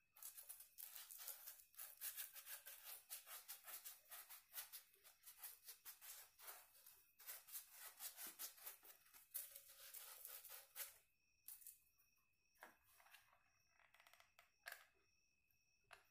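Faint sandpaper scraping rapidly back and forth on the end of a PVC pipe, a dense scratchy rasping for about the first eleven seconds. After that come a few light clicks and knocks of plastic pipe being handled.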